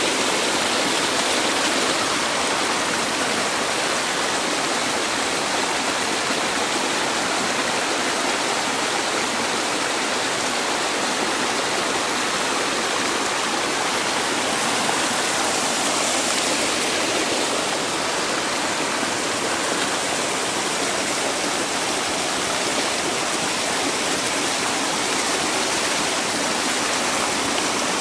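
Mountain creek cascading over granite boulders at the top of a waterfall: a steady rush of white water.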